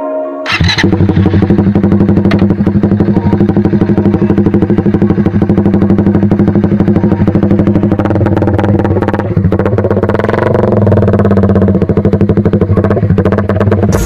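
Motorstar single-cylinder four-stroke motorcycle engine running at a steady speed with a fast, even exhaust beat. It starts about half a second in, after a brief cut, and shifts slightly in pitch around ten seconds in.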